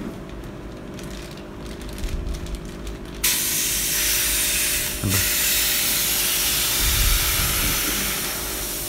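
Compressed oxygen hissing from a hose nozzle into a plastic fish-transport bag, starting suddenly about three seconds in and then running steadily. The bag of live tilapia is being filled with oxygen for transport.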